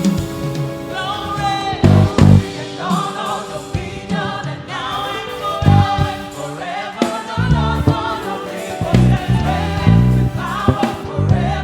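Gospel choir singing a contemporary praise song, backed by a band with drums and bass.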